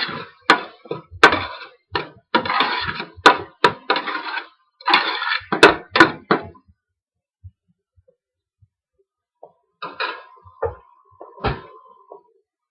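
A spoon stirring and scraping chopped onion, garlic, ginger and chili around the bottom of a stainless steel pot, in short scraping strokes with sharp clicks of the spoon against the metal, for about six and a half seconds. It then goes quiet, with a few more knocks near the end.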